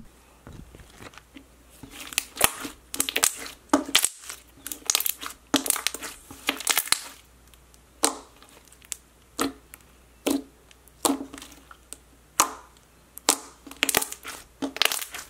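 Thick, glossy slime being stretched and squished by hand, making irregular sharp clicks and pops, the 'super clicky' sound of a thick slime. They are sparse at first and come a few a second from about two seconds in.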